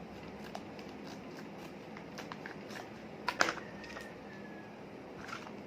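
Scissors and a plastic detergent packet being handled: scattered light clicks and rustles, with one sharper click about three and a half seconds in.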